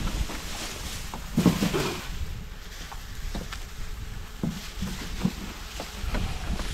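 Dry marsh grass rustling and crunching as it is handled and stuffed into a wooden duck blind, with scattered knocks and a louder bump about a second and a half in.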